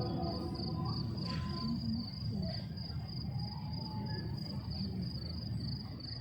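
Low, steady murmur of a crowd and open space in a pause of the call to prayer, with a thin, high-pitched chirp pulsing evenly about five times a second throughout.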